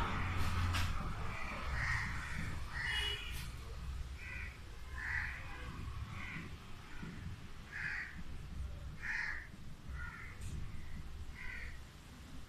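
A crow cawing over and over, short separate caws about once a second.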